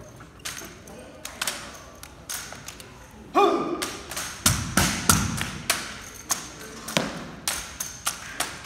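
Drill rifles being spun, tossed and caught in exhibition rifle drill: a string of sharp, irregular knocks and slaps as hands smack the rifle stocks and the butts strike the concrete floor. There is a short pitched squeak or call about three and a half seconds in.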